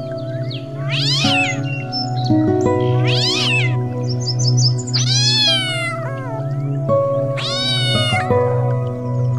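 A cat meowing four times, roughly every two seconds, the last two calls longer and falling in pitch, over background music with sustained notes.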